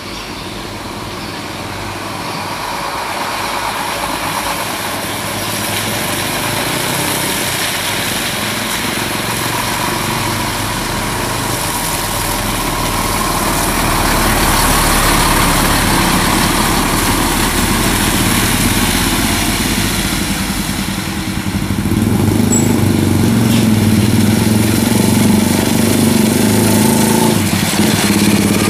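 Heavy log-laden trucks driving past on a dirt road, with a diesel engine running and tyre noise. The sound grows louder as a truck passes close. About three quarters of the way through, a deeper, stronger engine note comes in.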